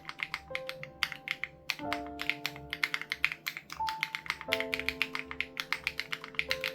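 Fast, steady typing on an SPM AL87B mechanical keyboard with BSUN Raw switches and its sound-dampening foam removed, a quick run of sharp key clacks. Soft background music with held chords that change every second or two plays underneath.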